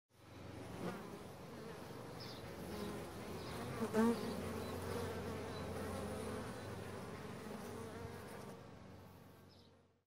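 Bees buzzing steadily in a hum that fades in at the start and fades out near the end, with a brief louder buzz about four seconds in.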